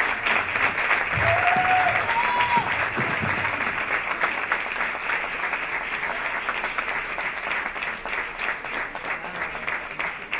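Audience applauding, the clapping thinning into more separate claps toward the end.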